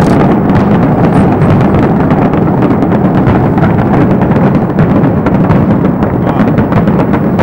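Fireworks barrage: many shells bursting in quick succession, their booms and crackles running together into a continuous rumble.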